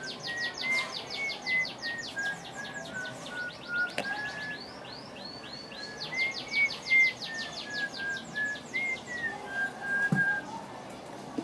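Small birds chirping in fast, repeated trills that stop and start in bursts. A slow melody of held, whistle-like notes runs beneath them.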